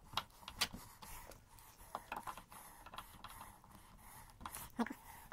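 Hand screwdriver turning screws into a TV stand leg: faint, irregular clicks and scrapes of the driver tip in the screw head.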